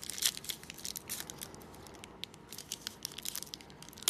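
Foil wrapper of a trading-card pack being torn open and crinkled by hand: a steady run of short, sharp crackles.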